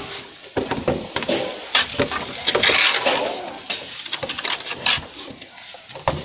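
Plastering trowel scraping and tapping wet cement mortar against a concrete slab edge: a run of short scrapes and knocks, with a longer scrape about two and a half seconds in.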